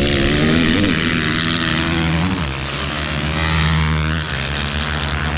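Dirt bike engines racing on an ice track, running at steady high revs with the pitch shifting twice, about two seconds in and again a little after four seconds in.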